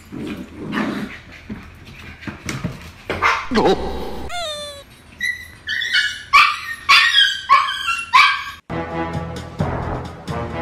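Puppy barking in a run of about six high, sharp yips, just after a short falling whine. Background music takes over near the end.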